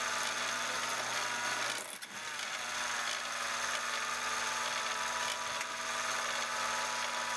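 Chinese mini metal lathe running with a steady motor whine while a tailstock-chuck drill bit drills into a spinning aluminum puck. About two seconds in, the sound briefly dips and its pitch wavers, then steadies as the spindle runs on with the bit withdrawn.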